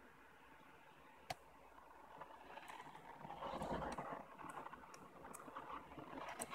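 Lock picking in a Mul-T-Lock Interactive cylinder: a single sharp click about a second in, then faint scraping with a scattering of small ticks as a flag pick works the spooled inner pins under tension.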